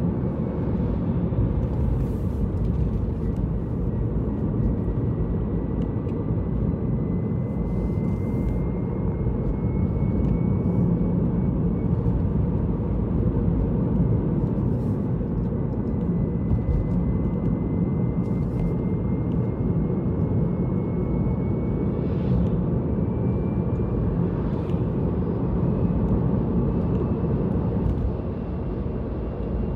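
Steady road and engine noise of a car driving along: an even low rumble, with a faint thin whistle that slowly rises in pitch and a few light ticks.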